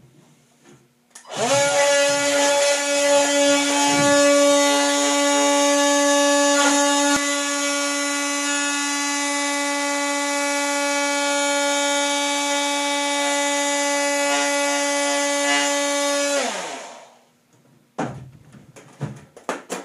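Cordless Dremel oscillating multi-tool cutting through a plexiglass sheet: a steady, pitched power-tool buzz that spins up about a second in and winds down near the end. The blade heat partly melts the plastic along the cut. A few knocks follow near the end.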